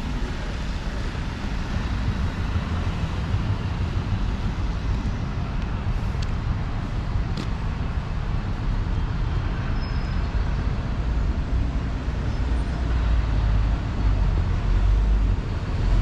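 Road traffic on a city street: a steady low rumble of passing vehicles with tyre and engine noise, growing louder near the end as a vehicle comes close.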